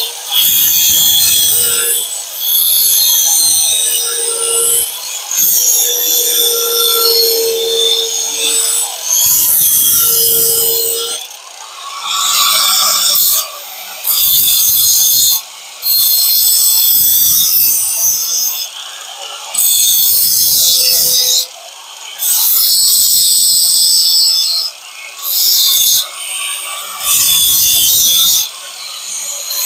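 A power tool grinding in repeated passes of one to two seconds with short breaks between them. A steady motor whine runs under the passes for roughly the first ten seconds.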